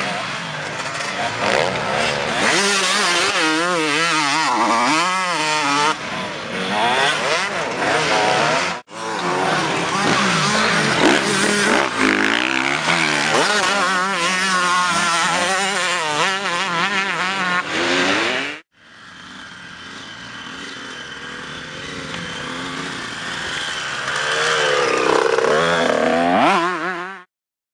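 Honda CR125 single-cylinder two-stroke motocross bikes with Pro Circuit exhausts revving hard, the engine pitch rising and falling quickly through gear changes and corners. The sound cuts abruptly twice. The last part starts quieter and grows louder as a bike comes closer, then stops suddenly near the end.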